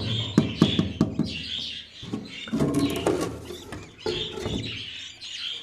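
Budgerigars chirping and chattering continuously in the aviary, with several sharp clicks and knocks as a nest box is handled and opened.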